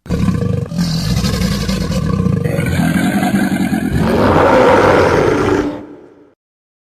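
Monster roar sound effect: one long, rough growling roar that swells to its loudest about two-thirds of the way through and then fades out, leaving silence for the last half second or so.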